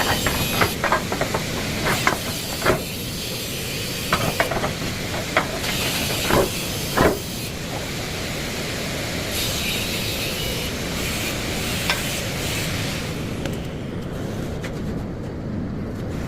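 Cutting or welding 10 mm steel plate: a steady hiss with scattered sharp pops and crackles in the first half. The hiss eases near the end.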